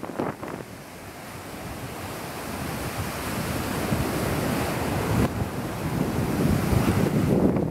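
Ocean surf washing up the beach, the rush of water building steadily to its loudest near the end, with wind buffeting the microphone.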